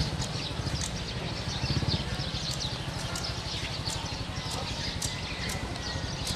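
Small motorcycle engine running with a steady low putter, with birds chirping high over it.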